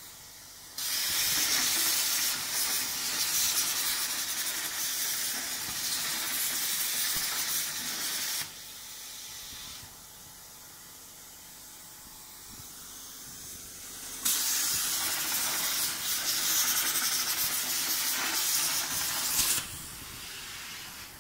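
CNC plasma cutter torch cutting steel sheet: two stretches of loud, steady hiss, the first about seven seconds long starting about a second in, the second about five seconds long starting around fourteen seconds. Each switches on and off abruptly and leaves a brief, quieter hiss after it.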